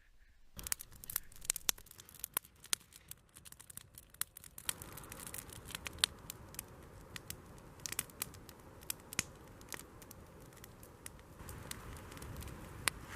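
Wood campfire crackling, with sharp irregular pops and snaps over a steady hiss that fills out about five seconds in.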